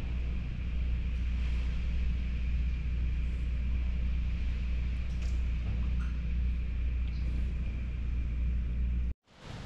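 Hurricane-force wind and driving rain making a steady low rumble, heard from indoors through window glass, with a faint steady high whistle over it. The sound cuts off suddenly near the end.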